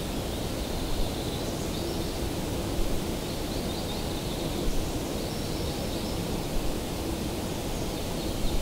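Steady outdoor wind noise with a few faint, high bird chirps now and then.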